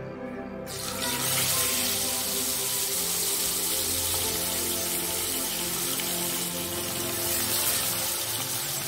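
Pomfret fish sizzling in hot oil in a frying pan. The sizzle starts suddenly about a second in as the fish goes into the oil, then runs steadily.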